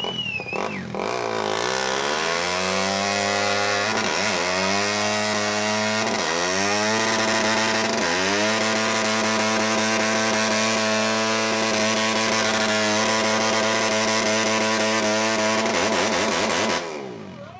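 Motocross bike engine revving hard in a stationary burnout, its rear tyre spinning and smoking on the deck. The revs climb in about four rises, are then held high and steady for about eight seconds, and fall off near the end.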